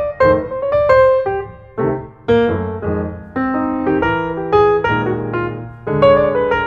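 Background piano music: chords and a melody line, with notes struck and left to ring.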